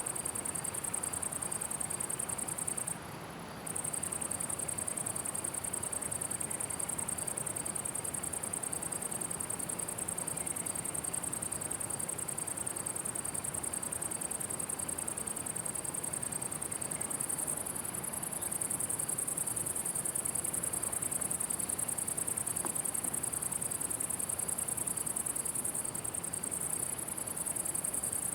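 Crickets chirring in a continuous high-pitched trill that drops out briefly about three seconds in and grows a little louder from about eighteen seconds in.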